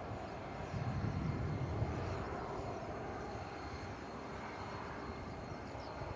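Cessna 525C Citation CJ4's twin turbofan engines at take-off power during the take-off roll, heard from a distance: a steady jet rush with a faint high whine, swelling a little about a second in.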